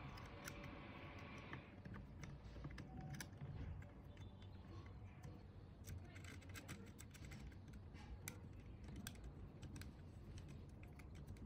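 Faint, irregular small metal clicks and ticks as a hex key turns a tiny screw at the fan hub of a metal WP-85 turbojet model kit, with a brief rustle in the first second or two.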